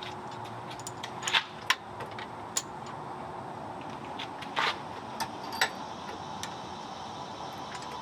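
Scattered sharp metallic clinks and taps of hand tools and hardware during rear shock and coil spring installation on a truck, about six over a few seconds, with a steady low background hum.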